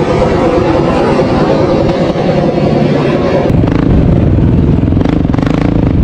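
Quad (ATV) engine running on the dunes. About three and a half seconds in, the note drops lower and gets heavier.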